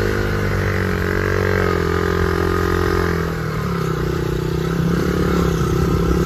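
Dirt bike motor running close by as it is ridden over grass: a steady pitched drone that drops slightly in pitch about three seconds in.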